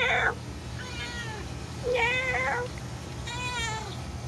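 A cat and a person imitating a cat trading meows back and forth: about four drawn-out meows, roughly one a second, some louder and some fainter.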